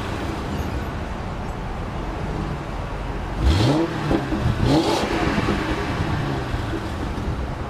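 2006 Ford Crown Victoria LX Sport's 4.6-litre V8 idling, with two quick throttle blips about three and a half and four and a half seconds in. Each time, the exhaust note rises and falls back to idle.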